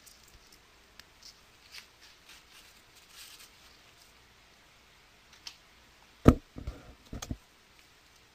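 Handling noise: a few faint clicks over quiet room tone, then a sharp thump about six seconds in, followed by several softer knocks and rustles.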